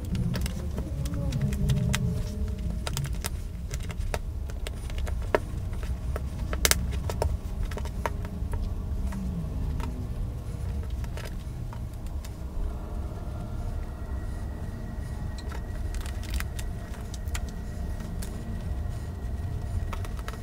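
Hands handling a fleece sweatshirt as it is twisted and bound with rubber bands for tie-dye: rustling with scattered small clicks and snaps over a steady low rumble. A faint steady high hum comes in about two-thirds of the way through.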